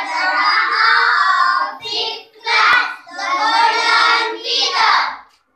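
A group of young girls voicing together in unison, in several short phrases with brief pauses.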